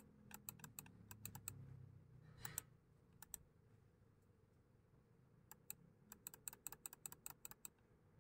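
Faint clicking at a computer: a few scattered clicks at first, a pair a little after three seconds in, then a quick run of key-like clicks near the end.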